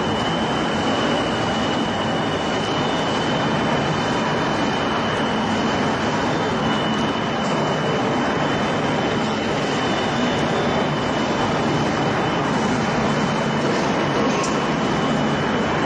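Glass tempering furnace line running: a steady, even machine noise with a thin, constant high whine.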